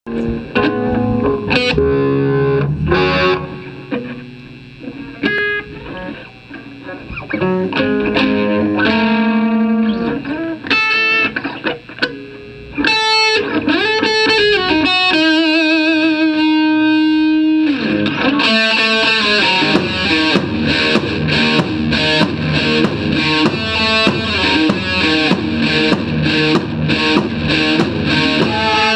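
Distorted electric guitar playing: single sustained notes with bends and vibrato, then from about 18 seconds in a fast, driving rhythm riff.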